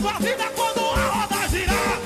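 Upbeat Brazilian Pentecostal gospel music (a corinho de fogo) with a steady drum beat and a lead melody that bends up and down in pitch.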